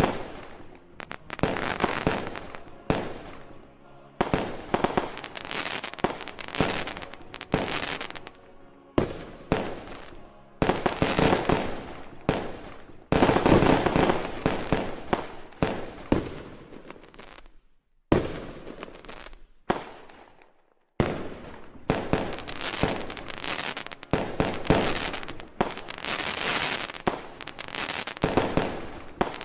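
Aerial fireworks shells bursting in quick succession, each sharp bang fading out, loudest about halfway through and pausing briefly about two-thirds of the way in.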